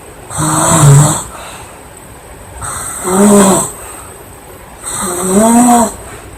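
Loud snoring from a sleeping girl: three pitched, droning snores about two seconds apart, each lasting about a second.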